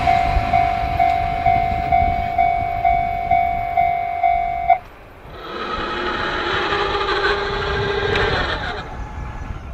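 Japanese level-crossing alarm ringing a steady electronic tone that pulses about twice a second, then cutting off suddenly a little before halfway. After it, the fainter running sound of the departing 185 series electric train for a few seconds, tapering off near the end.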